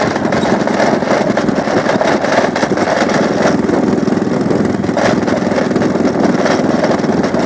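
Motorcycle engine running steadily while riding along a dirt road, with wind and road noise.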